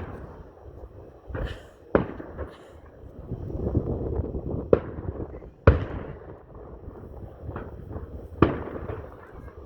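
Fireworks display: about half a dozen sharp bangs spaced irregularly, the loudest a little past halfway, with a low rumble between them.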